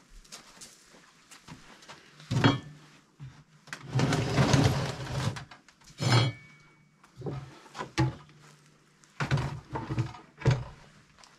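Wooden boards being handled and set down on a wooden workbench: a series of knocks, with a longer sliding, rubbing noise about four seconds in.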